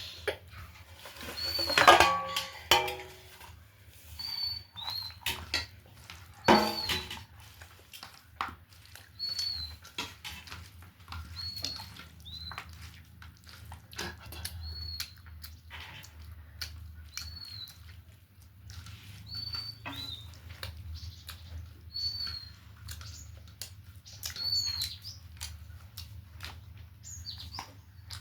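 A small bird's short, high chirp, repeated every couple of seconds, over a steady low hum. Two louder sounds break in about two and six and a half seconds in.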